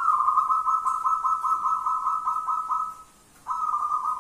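Zebra dove (perkutut) cooing: a long run of quick pulsing coo notes at one steady pitch. It breaks off about three seconds in, then starts again briefly.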